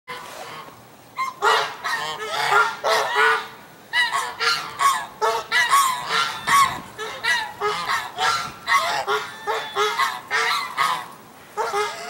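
Domestic geese honking over and over, short loud nasal calls following one another about twice a second from about a second in, with a short lull near the end.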